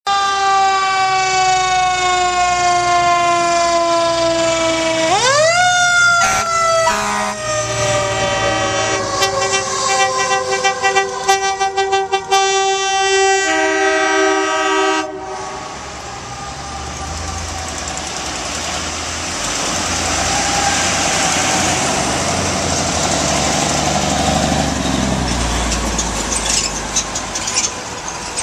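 Fire truck siren winding down, then whooping back up about five seconds in and falling away again, followed by repeated horn blasts. After an abrupt change the siren fades under the engine and road noise of a line of vehicles passing.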